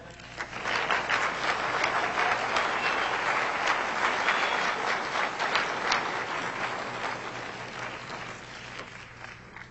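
A large seated audience applauding. The applause swells within the first second, holds steady, then slowly dies away over the last few seconds.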